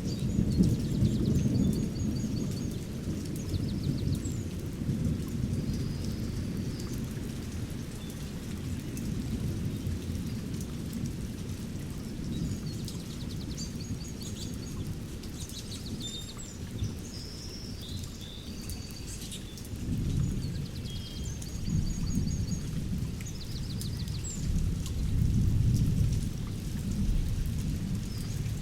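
Distant rolling thunder rumbles low and deep, swelling near the start and twice more in the last third, while small birds chirp and trill above it.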